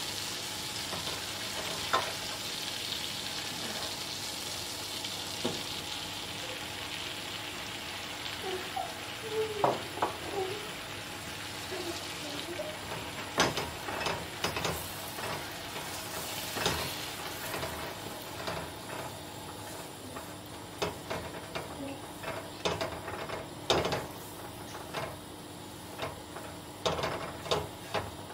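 Hot liquid sizzling and bubbling in a stainless steel pot on a gas stove, the hiss fading over the first few seconds. From about halfway, a wooden spoon stirs flour into it, with irregular scrapes and knocks against the pot.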